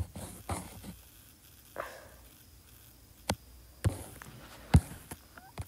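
Finger taps on a tablet touchscreen: a handful of faint, irregular clicks and taps, about seven spread through a few seconds.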